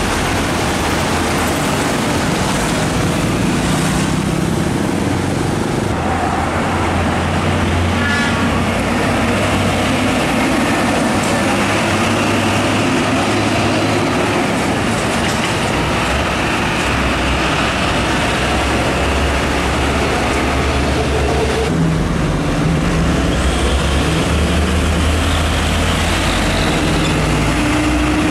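Heavy diesel trucks towing drawbar trailers, engines running as they pull past at low speed, over steady road-traffic noise.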